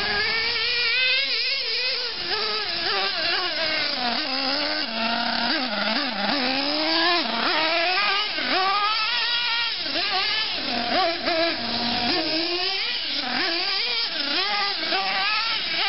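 LRP .28 nitro two-stroke engine in a Team Losi Aftershock RC truck, revving up and down over and over as the truck is driven. Its pitch rises and falls about once a second.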